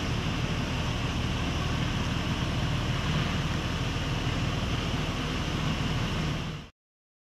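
Porsche 911 Carrera 4's flat-six engine idling steadily; the sound cuts off abruptly near the end.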